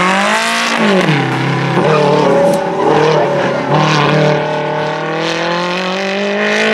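Sports car engine revving hard while the car is drifted through a cone course. Its pitch rises and falls with the throttle, and tyres squeal on the tarmac.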